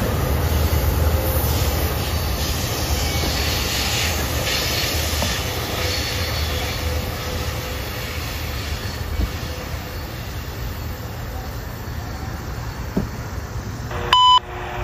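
MARC commuter train pulling away: the rumble of its wheels on the rails fades slowly as it recedes. Near the end a short steady beep from a radio scanner sounds, just ahead of a defect-detector broadcast.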